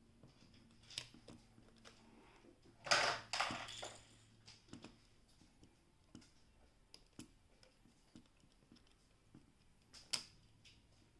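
Scattered light clicks and taps of small objects being handled, with a louder rustling clatter about three seconds in and a sharp click about ten seconds in.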